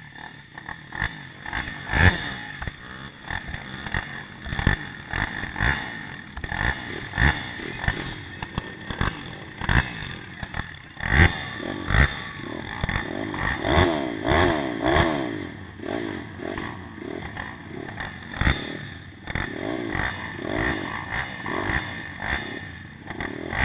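Pit bike engine revving up and down, heard from a camera mounted on the bike, with frequent sharp knocks and rattles from the loosely mounted camera.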